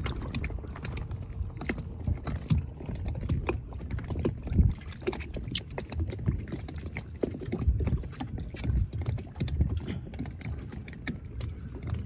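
Small lake waves slapping and sloshing against a dock's posts, with irregular sharp slaps and knocks over a steady low wash of water.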